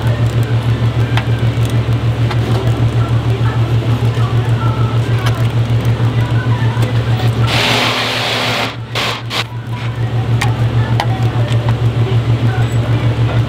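A steady low hum pulses evenly about six times a second, with a few faint clicks from a ratchet torque wrench tightening oil pan bolts to 44 inch-pounds on a Subaru EJ engine block. A burst of hiss lasts about a second, around eight seconds in.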